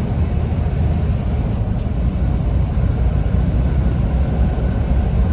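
Semi truck's diesel engine running at road speed, a steady low drone mixed with tyre and road noise, heard from inside the cab.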